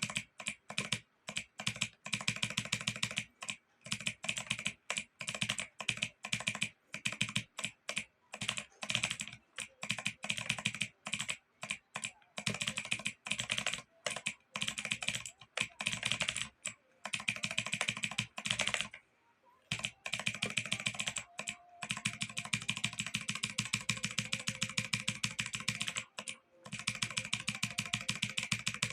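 Computer keyboard being typed on: rapid runs of key clicks in bursts, with short pauses between them and a longer pause about two-thirds of the way through.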